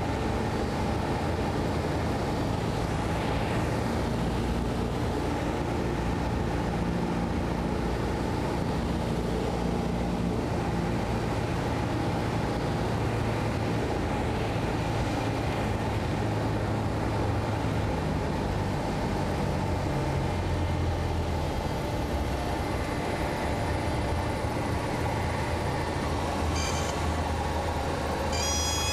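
Piston engine of a single-engine light aircraft heard from inside the cabin, running steadily on the landing approach, its pitch shifting slightly now and then. Near the end come short high-pitched squealing tones.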